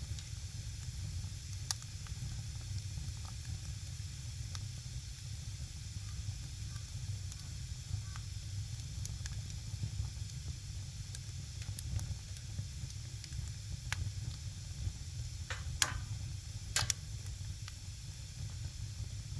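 Firewood burning with a steady low hiss, crackling with sharp pops now and then. A few louder pops come close together near the end.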